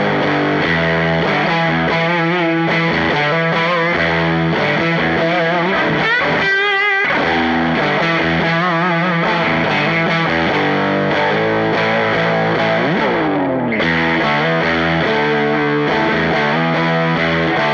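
Electric guitar, a Stratocaster, played through drive pedals into a 40-watt AmS Hurricane 40 valve amp head powered by four 6V6 tubes: sustained driven notes and chords. Wide vibrato bends come about a third of the way in, and a sliding pitch glide comes past the two-thirds mark.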